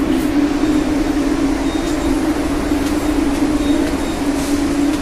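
MBTA Red Line subway train pulling out of the platform: a steady hum with rumbling noise.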